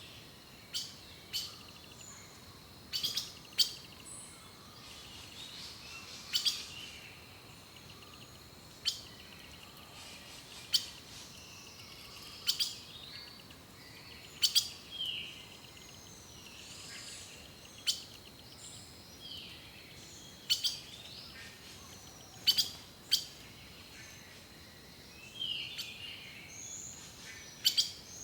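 Birds chirping and calling: short chirps and whistles, with sharp clicking notes every second or two, over a faint steady high tone.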